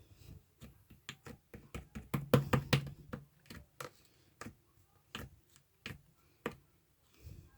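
A run of light, irregular taps and clicks, bunched closely together for about a second near the middle, then spaced out.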